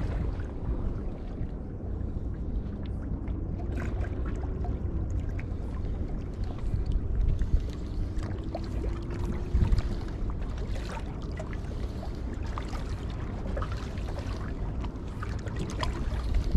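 Wind rumbling on the microphone over water washing along a shallow rocky shoreline, with scattered light clicks and taps.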